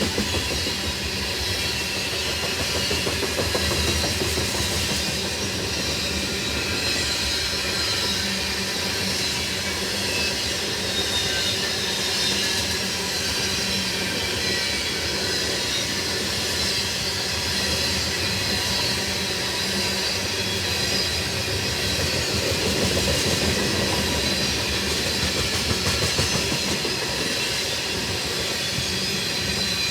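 Freight train of tank cars rolling past: a steady, continuous rumble and clatter of steel wheels on the rails.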